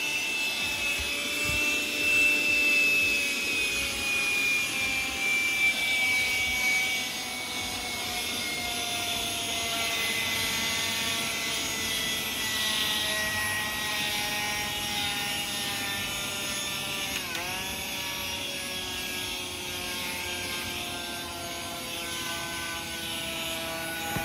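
Handheld car vacuum running as its nozzle works over a carpeted floor mat: a motor whine over the rush of suction air. The whine's pitch slowly falls, with a brief dip and recovery about two-thirds of the way through.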